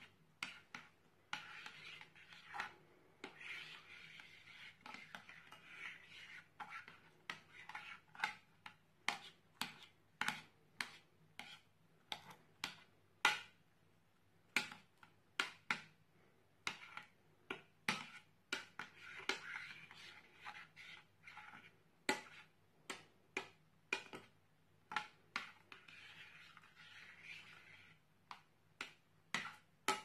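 Bead-filled crunchy slime being pressed and stirred by hand in a glass dish: sharp crunchy pops, about one or two a second, over soft squishing and rubbing.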